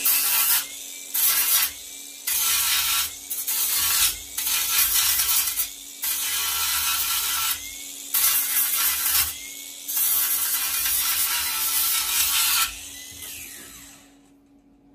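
Angle grinder grinding down weld beads on a steel lawn mower deck. It cuts in about eight bursts of a second or so, easing off between passes, and the grinder's motor hums steadily underneath. It stops a little before the end.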